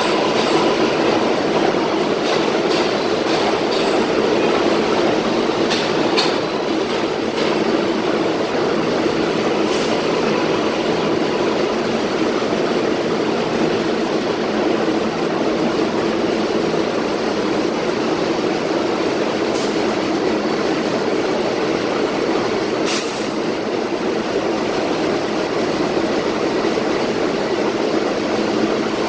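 Steady running noise of an R188 subway train in an underground station, with a few short sharp clicks.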